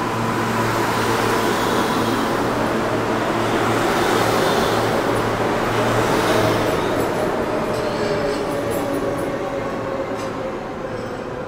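Kawasaki R143 subway train pulling out of the station: wheels rumbling and electric motors whining steadily as the cars pass, loudest about halfway and fading as the last car leaves, with a few light clicks near the end.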